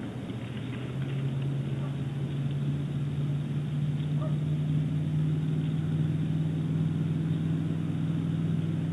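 A distant motor engine droning steadily, coming in about a second in and holding a low, even pitch.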